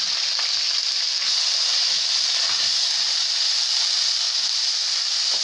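Finely chopped onions sizzling in hot cooking oil in a karahi, a steady high hiss of frying as they start to cook.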